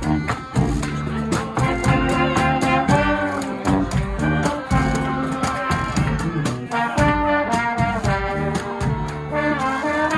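Guggenmusik band playing loudly: trumpets and trombones blare a swinging tune over a steady drumbeat.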